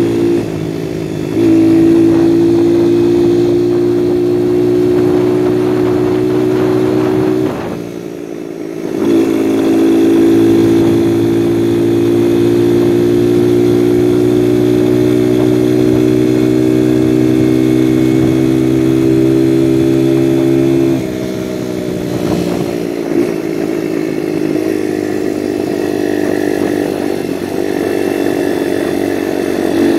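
Viper 150cc dirt bike's single-cylinder four-stroke engine running under way, its pitch creeping steadily upward as it pulls. The revs dip briefly about a second in and again about eight seconds in. About 21 seconds in the throttle comes off and the engine drops to a lower, uneven run as the bike slows.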